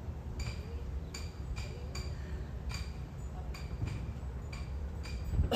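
Light metallic clinks in a steady rhythm, a little more than one a second, each ringing briefly, over a steady low rumble. A louder knock comes near the end.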